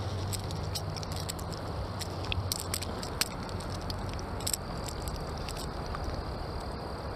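Light clicks and rustles from handling a freshly caught brown trout, over a steady low outdoor rumble.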